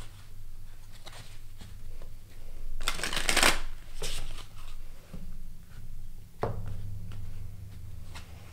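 A tarot deck being shuffled by hand: cards slide and click against each other, with one loud rush of shuffling about three seconds in. A faint low hum runs underneath.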